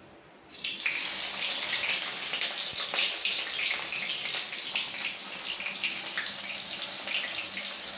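Sliced onion dropped into hot oil in a kadai, which bursts into a sizzle about half a second in and keeps frying with a steady crackle.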